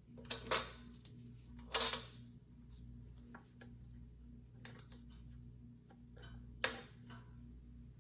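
Metal tools and parts being handled: three sharp clinks with a short ring, the second the loudest, and a few lighter taps between them, over a steady low hum.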